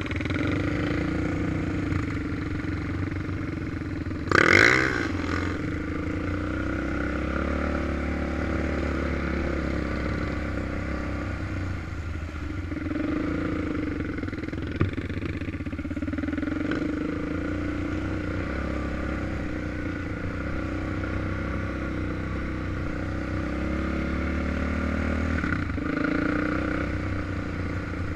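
Suzuki LT-Z400 quad's single-cylinder four-stroke engine running steadily under the rider, with one short sharp rev, rising in pitch, about four and a half seconds in, and a single click about fifteen seconds in.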